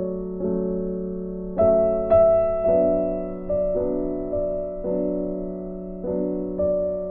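Background music: slow piano or electric-piano chords, a new chord struck about once a second and left to ring.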